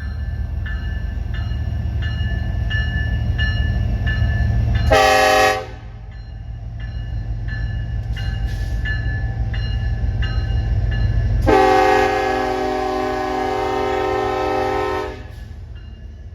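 Diesel locomotive horn on a loaded coal train, sounding a short blast about five seconds in and a long blast about three and a half seconds long near the end, over the steady low rumble of the locomotives. A crossing bell dings at an even beat, about three strokes every two seconds.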